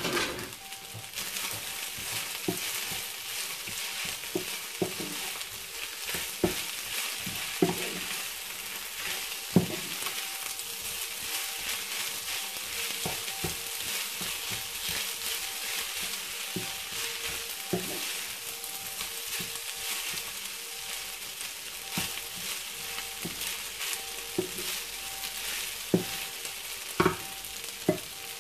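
Fried rice with minced meat and basil sizzling in a frying pan while a wooden spatula stirs it, a steady hiss with occasional knocks of the spatula against the pan.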